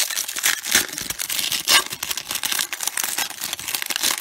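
A 1994 Topps baseball card pack's wrapper being torn open and crinkled by hand: a dense run of crackles.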